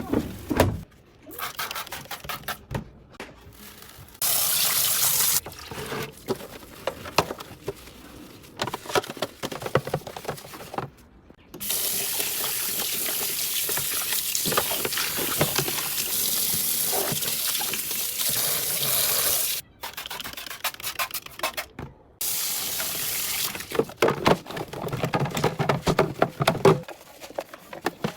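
Water running from a tap in three spells, the longest about eight seconds, with clinks and knocks of items being handled and washed between them.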